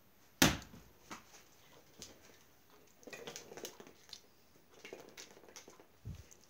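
A rubber bouncy ball striking a hard floor once, sharply, about half a second in, followed by faint scattered taps and rustles.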